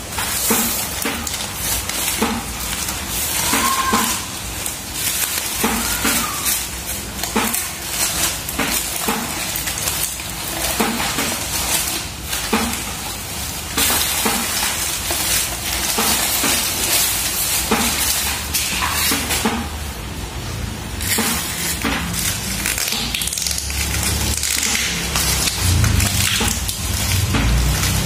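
Plastic packaging crinkling and rustling continuously as a black plastic mailer bag is torn open and plastic-wrapped rolls are handled, with a low rumble near the end.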